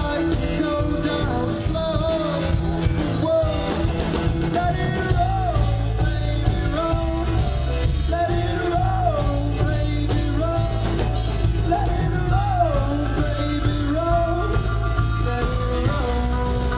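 Live rock band playing through a PA: electric guitar, bass guitar, drum kit and keyboard, with a male lead vocal. The bass and drums get heavier about five seconds in.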